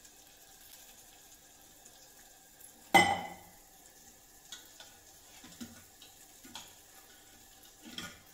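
A metal spoon striking a steel cooking pot while cooked dal is scooped out: one loud ringing clang about three seconds in, then a scatter of lighter clinks and taps.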